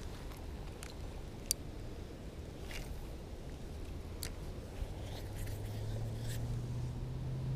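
A spinning rod and reel being handled: scattered light clicks over a low wind rumble. From about five seconds in, a low motor hum joins and rises slowly in pitch.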